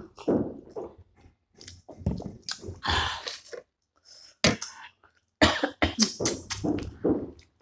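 Close-miked eating sounds of momo in soup: slurps, wet chewing and several short, sharp lip smacks.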